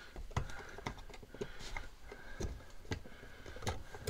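Irregular light clicks and ticks of electrical wire being handled and pushed about inside a plastic wall box.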